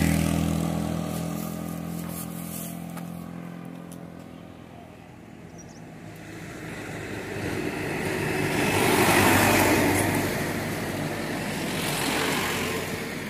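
Road vehicles passing close by, one after another. An engine hum fades away over the first few seconds. Another vehicle then approaches and passes, loudest about nine to ten seconds in, and a third swells and fades near the end.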